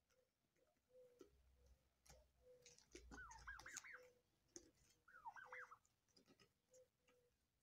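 Faint scattered pecking clicks from turkeys feeding on sprouted wheat, with two short warbling, whistled bird calls, about three and five seconds in.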